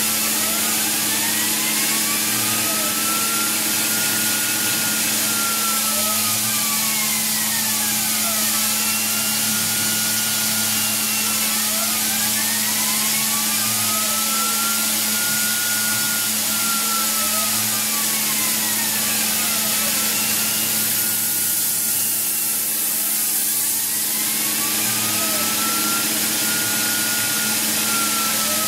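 Tormach PCNC 1100 CNC mill running the last pass of a spiral grease groove in a girder fork link. A steady machine hum runs under a whine that rises and falls in pitch in smooth arcs every five to six seconds.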